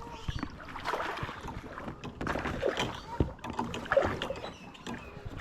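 Irregular knocks, rustling and water sounds from a kayak as a hooked largemouth bass is fought close to the boat.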